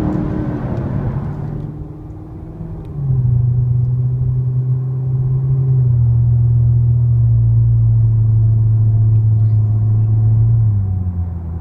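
2014 Corvette Stingray's 6.2-litre LT1 V8 through a custom exhaust, heard from inside the cabin while driving. The engine note falls away and quietens at first, then about three seconds in it grows loud and holds a steady low drone at constant revs, easing off near the end.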